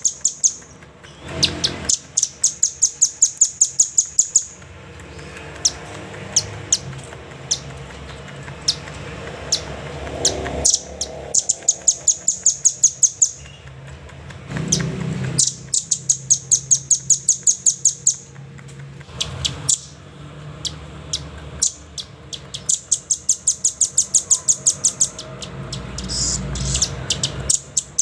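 Velvet-fronted nuthatch calling: rapid, high-pitched trills of sharp chit notes in bursts of two to three seconds, repeated every few seconds, with scattered single chips between them.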